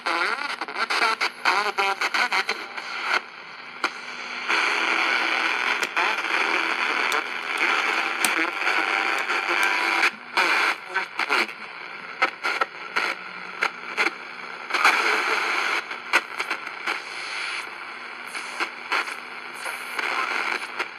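Sound from the speaker of a cheap QFX R-9 portable radio on the shortwave band: static and hiss that change abruptly as the dial is tuned, with many sharp crackles, sudden drop-outs and brief snatches of broadcast sound, and no clear station.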